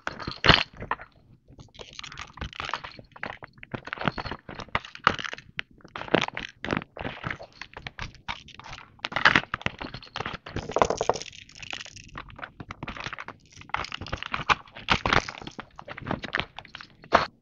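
Clear plastic bag of hard plastic baby rattles being handled: crinkling plastic with many irregular clicks and knocks of the toys against each other.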